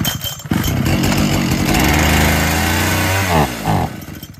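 Falcon 73cc two-stroke chainsaw engine running, then surging up and down in pitch about three seconds in and fading out as it dies near the end. It will not hold running when throttled even with a new spark plug fitted, a fault the mechanic puts down to the carburettor.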